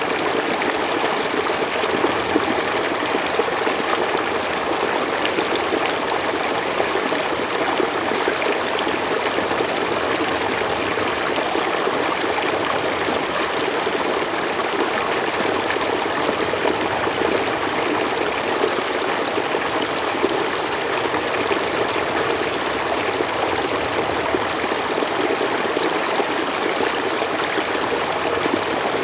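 Stream water flowing and splashing over rocks, a steady rushing with no change.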